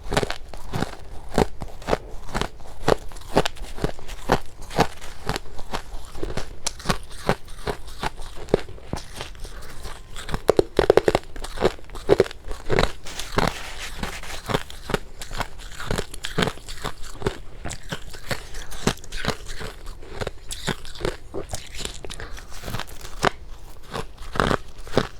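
Close-up biting and chewing of soft, powdery freezer frost: a steady run of crisp crunches, several a second, with a louder cluster of bites about halfway through.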